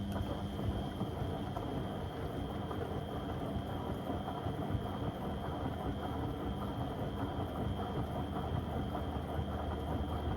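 Beko WM74135 washing machine running steadily with a load of door mats, a dense rumble under a constant high whine.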